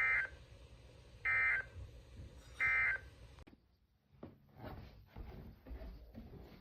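Weather radio speaker sounding the three short SAME end-of-message data bursts, about a second and a quarter apart, that close an Emergency Alert System broadcast. The radio's audio then cuts off, leaving faint room noise with a few light clicks.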